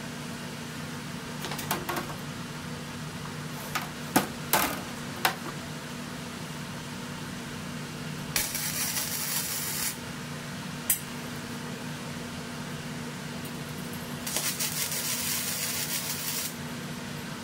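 Arc welder tacking a piece onto a cast exhaust manifold: the arc runs twice, for about a second and a half starting about eight seconds in and for about two seconds near the end, over a steady low hum. Before the first weld come a few sharp metal clicks and knocks as the parts are set in place.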